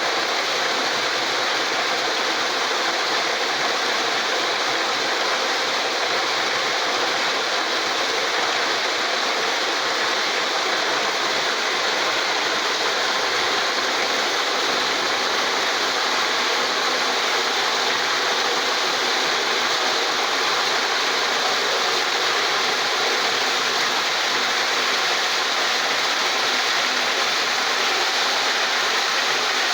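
Walnut washing machine running: a steady rush of water with a mechanical rattle, the sound of walnuts being washed.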